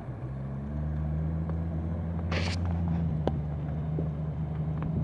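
Outboard motor of a small motorboat running out on the water, a steady low drone that picks up slightly in pitch and level in the first second, then holds even.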